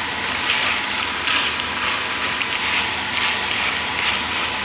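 Pork adobo frying in its own rendered fat in a stainless steel pot: a steady sizzle with irregular crackles and pops. It is the sign that the soy-vinegar braising liquid has reduced away and the meat is now frying dry.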